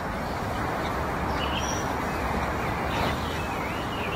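Steady background hum and hiss, with a few faint bird chirps around the middle.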